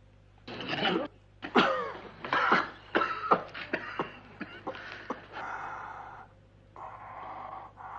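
A man coughing and sputtering in a string of hard bursts after swallowing a drink given to revive him, the coughs growing weaker and more drawn out towards the end.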